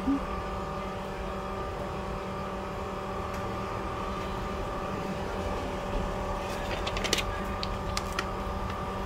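Steady mechanical hum of a running machine, several even tones held without change. A quick cluster of light, sharp clicks comes about six to eight seconds in.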